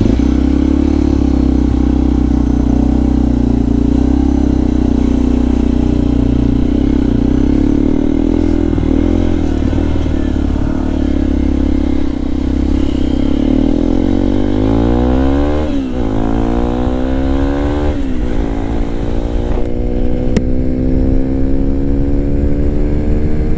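Motorcycle engine running steadily, then accelerating through the gears from about 14 seconds in: the pitch climbs, falls back at each of two gear changes, then climbs again.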